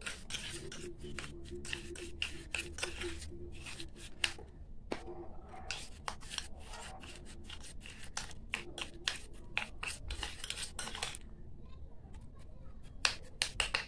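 Metal spoon scraping and clicking against a small stainless steel bowl in quick, irregular strokes as a soft batter mixture is beaten by hand.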